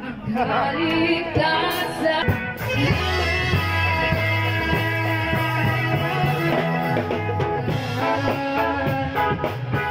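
Live band playing an amplified song, with a bass line moving under guitar and a hand drum.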